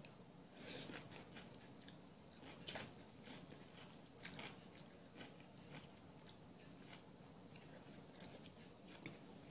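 A person chewing and biting food close to the microphone, with faint, scattered crunches every second or so.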